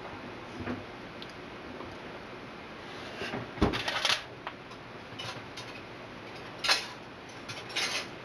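Kitchen clatter: a few short clinks and rustles, the loudest cluster about three and a half to four seconds in and another near seven seconds, over a steady background hiss.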